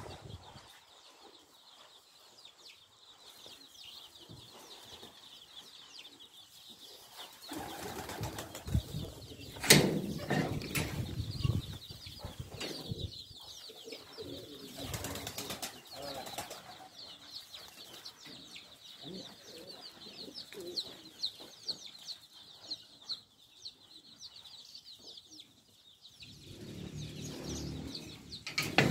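A flock of young chicks peeping, a dense chorus of short high peeps. There is a loud rustling burst about ten seconds in and a clatter near the end.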